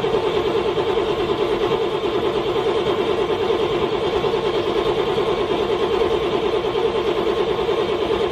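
A car's cold engine cranking over on its starter motor, not catching, in a steady rhythm of about four pulses a second.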